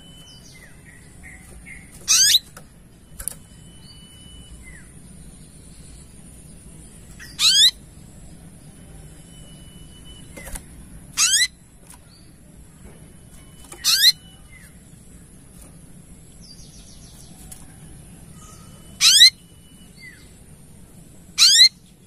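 A sunbird calling: six short, sharp, high sweeping calls spaced a few seconds apart, with faint small chirps in between.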